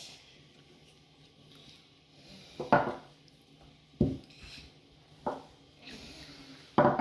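Four sharp knocks, about one every second and a bit, from Play-Doh tools being knocked and pressed against a tabletop.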